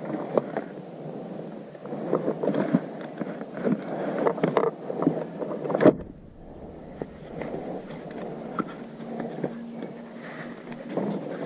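Irregular clicks and knocks of tools and parts being handled over a steady background noise, with an abrupt change about six seconds in.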